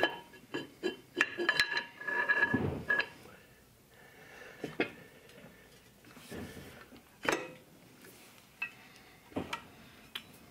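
Steel axle parts clinking and knocking as a one-piece axle shaft with hub and brake plate is slid into the axle tube and the plate is fitted over the flange studs. A quick run of ringing metal clinks in the first three seconds, then single knocks every second or two.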